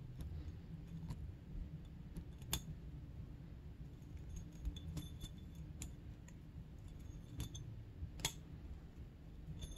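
A few faint, sharp metallic clicks, spaced a second or more apart, as a piston ring is worked by hand into its groove on a two-stroke snowmobile piston. A low steady hum runs underneath.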